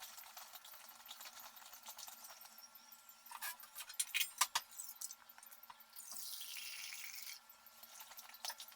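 Kitchen handling sounds: a few sharp knocks and clinks in the middle, then about a second and a half of hissing noise.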